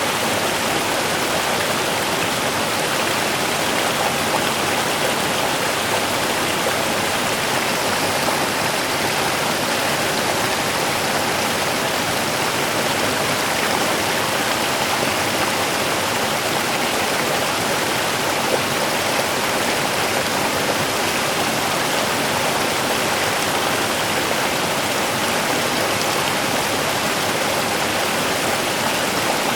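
Steady rushing water, an even wash of sound with no breaks or changes.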